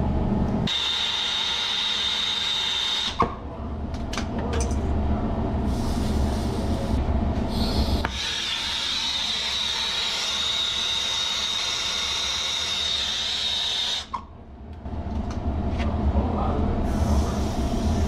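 Brazing torch flame running loud and steady, a hiss with a strong high edge, as it heats the joint of a new expansion valve on a copper refrigerant liquid line. The flame sound breaks off about three seconds in, runs steady again from about eight seconds in, and stops about fourteen seconds in, after which quieter sounds follow.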